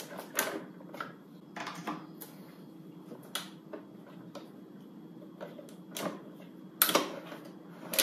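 Scattered plastic clicks and knocks as the Hamilton Beach 26031 rotating waffle maker is handled and its power cord plugged in, a few separate knocks with the loudest near the end.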